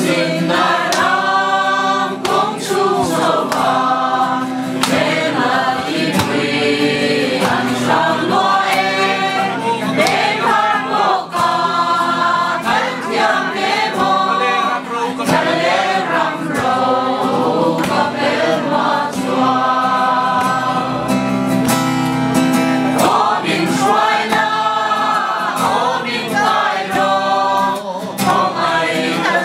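A group of men and women singing a Christian worship song together, accompanied by an acoustic guitar.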